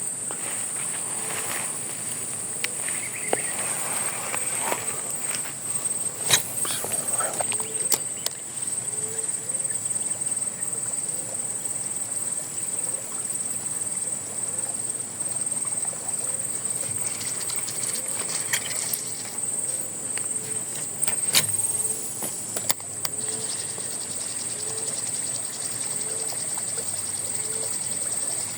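Steady high-pitched drone of insects. A faint short low call repeats about once a second through most of it, and there are a few sharp clicks.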